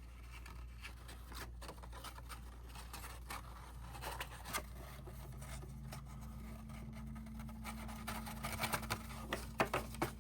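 Cardstock and tape being handled and pressed together: soft rustles and scrapes, with a run of quick sharp ticks near the end, over a low steady hum.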